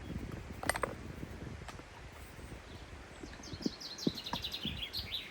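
A songbird sings a quick run of high notes that fall steadily in pitch over about two seconds in the second half. About a second in there is one sharp clink, and a few soft knocks follow, like tools and stones being handled.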